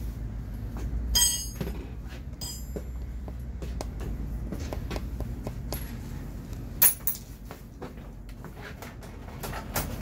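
Hand work on a stripped motorcycle front end: metal parts and tools clinking and knocking, with a ringing metallic clink about a second in and a sharp knock about seven seconds in, over a steady low hum.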